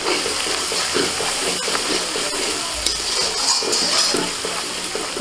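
Spice paste sizzling in mustard oil in a metal kadai while a flat metal spatula stirs and scrapes it around the pan, with a couple of sharp taps of the spatula on the metal. The paste is fried through and the oil has separated from it.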